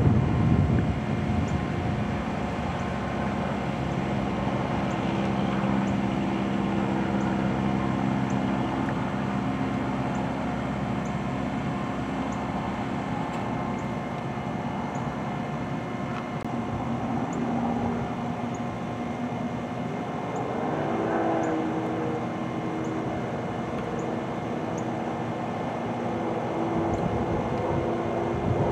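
Diesel engine of a skid-steer loader running steadily, its pitch shifting briefly about two-thirds of the way through.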